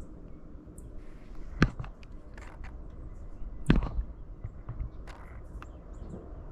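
Two sharp clicks about two seconds apart, each followed closely by a lighter one, over faint short high bird chirps.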